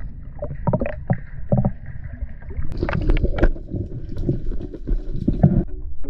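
Underwater sound picked up by a diver's camera: a steady muffled rumble of water with irregular sharp knocks and clicks as the spear, line and fish are handled. Plucked-string music comes in near the end.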